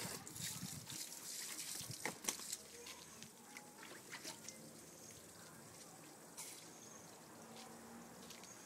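Garden water spraying and trickling, loudest with a few sharp splashes in the first two and a half seconds, then dying down to a faint steady hiss.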